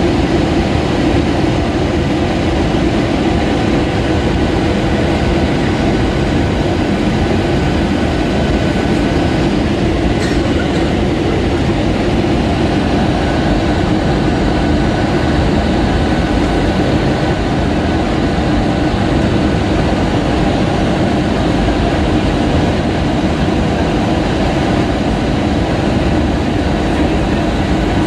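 Steady cabin noise of an Airbus A320-232 in flight, heard from a window seat beside its IAE V2500 engine: a loud, even rumble of engine and airflow with faint steady whines above it.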